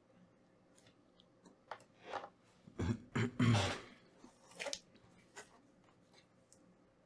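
A run of irregular small clicks and crunchy crackles lasting a few seconds, heaviest about three to four seconds in, where a duller knock is heard.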